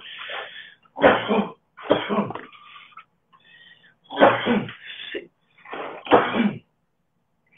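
A man coughing in about five harsh bursts: three roughly a second apart, a short pause, then two more.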